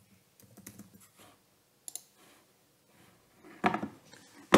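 Computer keyboard keys tapped in a short, light run of typing, followed near the end by a couple of louder clicks, the last one sharp.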